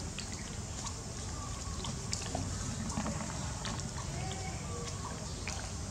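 Outdoor ambience around a troop of macaques feeding on gravel: scattered small clicks and rustles over a steady low rumble, with faint voices in the background.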